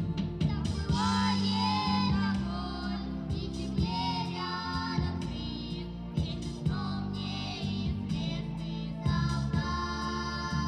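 A song sung by a high voice over instrumental accompaniment, the melody held in long notes with vibrato over a steady bass line.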